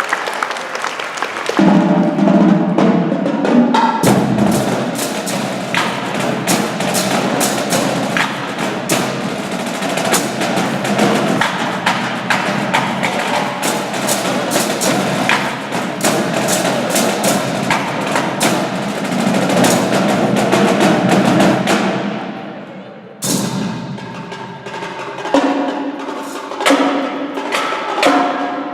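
Percussion-heavy music with many sharp wood-block-like and drum hits over pitched accompaniment, following a short spell of noisy haze at the start. The music fades out about 22 seconds in, and a new percussive passage starts about a second later.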